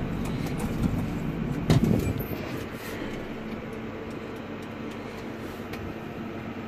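Tractor engine heard from inside the cab, running steadily, with one sharp clunk about two seconds in.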